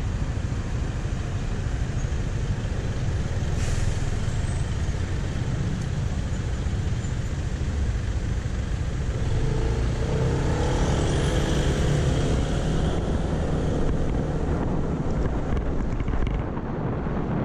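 City street traffic heard from a motor scooter waiting at an intersection. It swells about ten seconds in as a vehicle passes close by with a brief whine.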